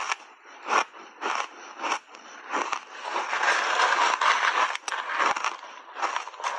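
Crunchy chewing of a mouthful of shaved ice, in short bursts, and a metal spoon scraping and digging through packed shaved ice in its container, with a longer scraping stretch of about two seconds in the middle.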